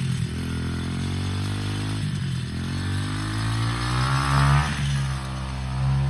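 Small 125cc dirt bike engine running under a rider. It eases off about two seconds in, then revs up steadily, peaking a little over four seconds in before easing off again.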